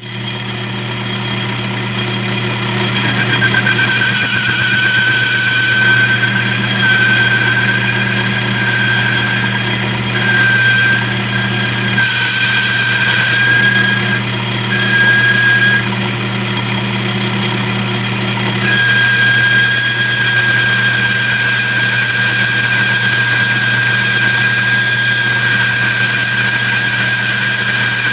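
Metal lathe running, boring out a pulley to a larger size: a steady motor hum with a high whine that breaks off and comes back several times during the cut.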